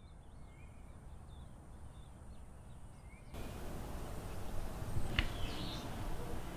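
Quiet morning ambience: small birds chirping outside over a low, steady background hum. The background grows louder about three seconds in, and there is a single soft click a couple of seconds later.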